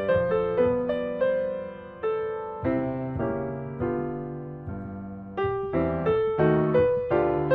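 Background piano music: a gentle melody of single struck notes, each fading away before the next.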